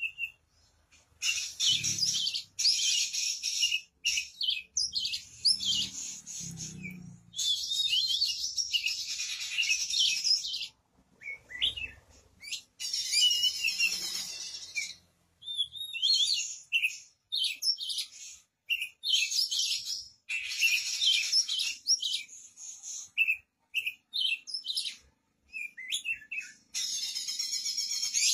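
Oriental magpie-robin (kacer) singing a loud, varied song of quick whistles and trills, delivered in phrases of a few seconds with short pauses between them.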